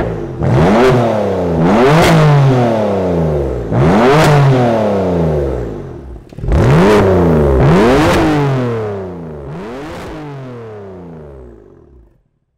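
BMW M3's twin-turbo inline-six revved repeatedly through an Akrapović exhaust system, about six blips each rising and falling in engine speed. The engine note fades away near the end.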